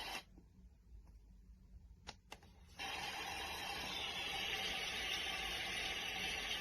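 Momcozy sunrise alarm clock's sound machine playing a steady white-noise hiss, which cuts off just after the start. Two clicks come a little after two seconds in, and the steady noise starts again just before three seconds in.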